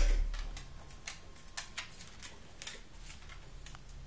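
A dull thump right at the start, then scattered light clicks of pet claws and paws on a wooden parquet floor as a dog and a cat scuffle and move apart.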